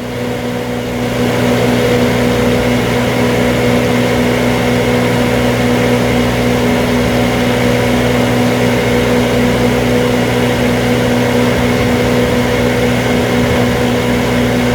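20 kW standby generator running steadily under test, its engine hum holding one even pitch: the speed, and so the output frequency, is holding steady now that a new speed-pickup sensor is in. The sound gets a little louder about a second in.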